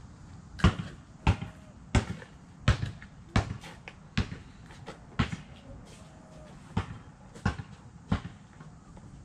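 A series of about ten thuds, roughly one every two-thirds of a second, with a longer pause past the middle, like something repeatedly striking or bouncing on pavement.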